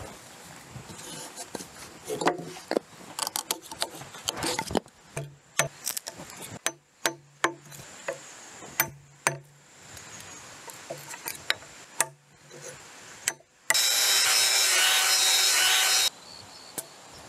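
Steel chisel working a tenon cut into a log end: a string of sharp knocks and scrapes on the wood. Near the end, a handheld angle grinder runs loud for about two seconds, sanding the log's surface, and cuts off suddenly.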